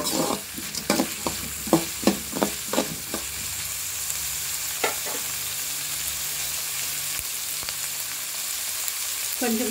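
Chopped onions, garlic and curry leaves sizzling in hot oil in a metal pan, stirred with a steel spoon that scrapes and knocks on the pan several times in the first three seconds and once more about five seconds in. After that the steady sizzle of the sauté carries on alone.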